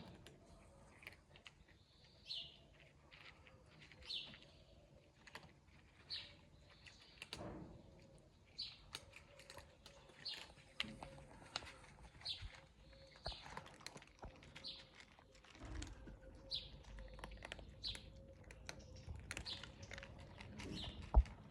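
A small bird chirping again and again, short high chirps about every one to two seconds, over a run of quick soft clicks and crunches from cats eating, with one sharp knock near the end.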